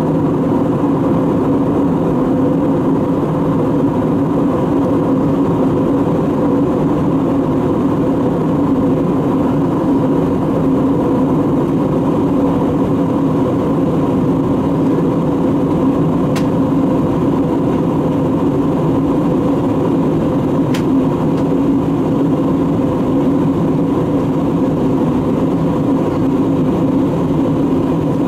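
Airbus A320neo airliner running steadily at low power: a constant drone with a steady hum, holding the same pitch and level throughout.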